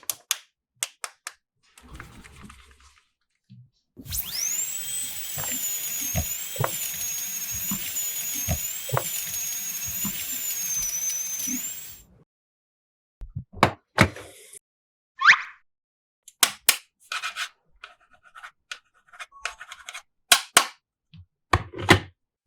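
Plastic toy pieces clicking and knocking as they are handled. For about eight seconds in the middle, a continuous electronic toy sound with high, wavering tones plays, then stops.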